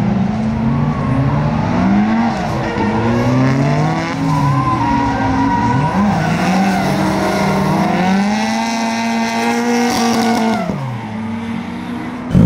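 Drift car's engine revving up and down again and again through a run, with tire squeal; the engine note falls away near the end.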